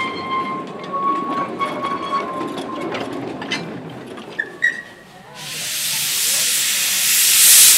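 A small narrow-gauge train runs past with a rumble and a steady high tone sounding on and off. About five seconds in, a loud steam hiss starts up from a small steam locomotive's open cylinder drain cocks and keeps going.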